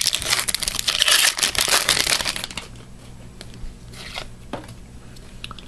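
Wrapper of a hockey trading-card pack being torn open and crinkled by hand, loud and dense for about two and a half seconds. After that come a few soft clicks and rustles as the cards are slid out.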